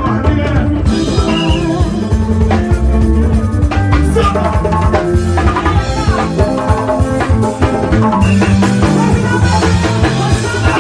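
Loud live band music played through the stage PA, with a drum kit beating steadily over heavy bass.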